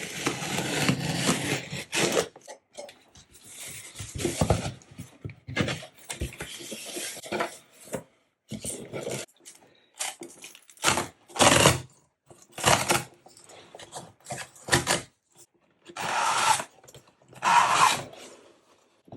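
Cardboard and paper packaging of a MacBook Pro box being handled and opened, rubbing and scraping in irregular bursts with short pauses between them.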